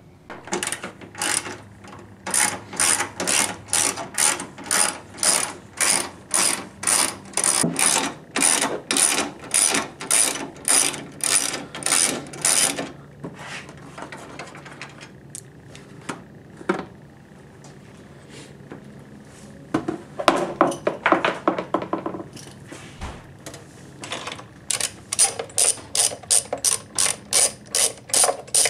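A 10 mm ratchet socket wrench clicks in quick back-and-forth strokes as bolts are backed out, about two strokes a second. There is a long run, a pause with a few single clicks, then two shorter runs.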